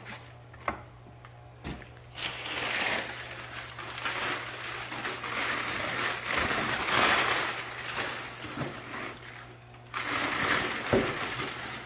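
Crumpled brown kraft packing paper rustling and crinkling as it is pulled out of a cardboard shipping box. It goes on in long, uneven stretches with a brief break near the end, after a couple of light knocks in the first two seconds.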